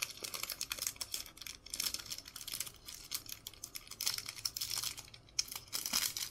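Clear cellophane trading-card pack wrapper crinkling and crackling as a stack of cards is slid out of it, in quick irregular crackles that grow louder near the end.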